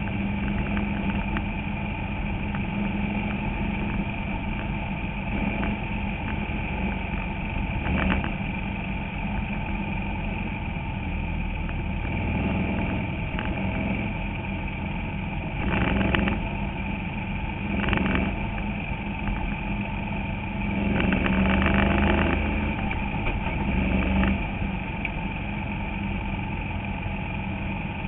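Bandolero race car's single-cylinder Briggs & Stratton engine running at a steady pace, heard from inside the cockpit, with several brief louder swells past the middle.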